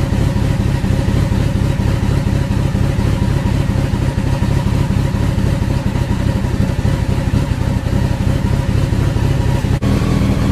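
Honda CBR1100XX Blackbird's inline-four engine running steadily on its first start-up after repair work.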